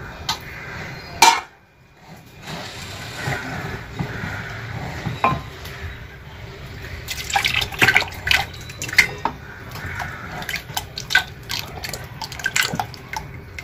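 Thin wheat-starch batter being poured into a large aluminium pot of hot water while it is stirred with a wooden stirrer. The liquid splashes steadily, with a sharp knock about a second in and frequent clicks and knocks of the stirrer and bowl against the pot in the second half.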